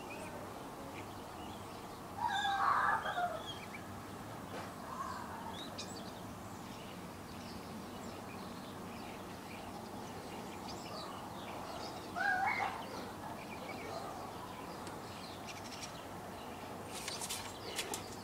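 Two short animal calls, one about two seconds in and one about twelve seconds in, over a steady background hiss, with a few light clicks near the end.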